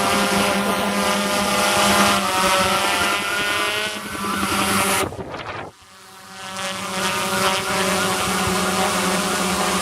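Hobby quadcopter running with a helicopter sound effect, a steady whirring hum with several tones. About five seconds in it drops out almost completely for under a second, then builds back up over about a second.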